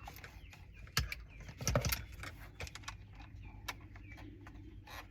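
Irregular metallic clicks and clinks of a hand socket wrench working a small screw out of plastic car dash trim, with two louder knocks, one about a second in and another a little under two seconds in.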